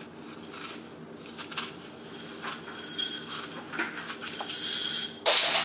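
A hand-held vegetable peeler shaving the skin off a green apple in long strips: soft, repeated scraping that grows louder about two seconds in. Near the end comes a short, loud scrape that stops abruptly.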